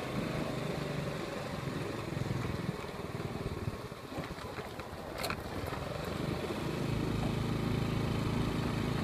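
Steady low engine hum of a moving vehicle, growing a little louder near the end, with one short click about five seconds in.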